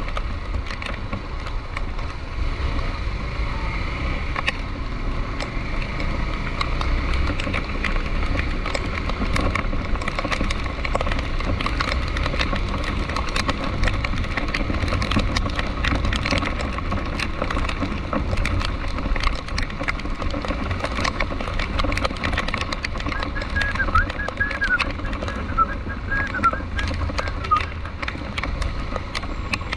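A vehicle in traffic in the rain: a steady low engine rumble under a stream of rain ticks, with a short run of high chirps about three-quarters of the way through.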